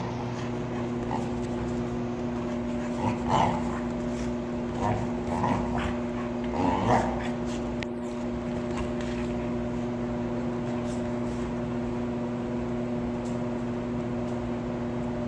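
Dogs play-fighting, with a few short barks and whimpers in the first half over a steady low hum.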